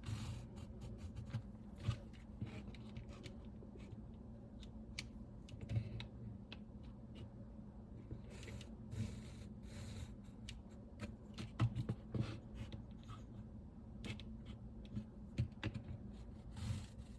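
Faint, irregular clicks and light scrapes of a pencil and level being handled against drywall to mark out the outline for an electrical box.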